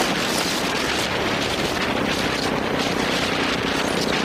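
Royal Enfield Bullet's single-cylinder engine running at a steady cruise, mixed with wind rush over the microphone. The engine's steady tone comes through more clearly from about two seconds in.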